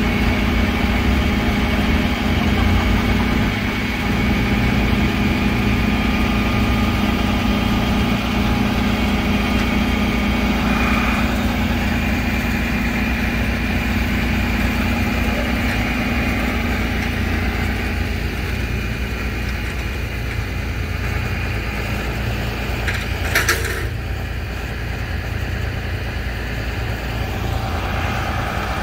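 Heavy tow truck's diesel engine idling, a steady low drone with a constant hum. A single sharp click about 23 seconds in.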